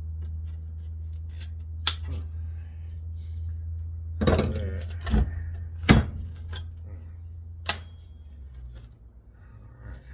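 Hand wire snips cutting the lead wires of a bench grinder's motor: several sharp snips with light metal clinks, over a steady low hum that fades near the end.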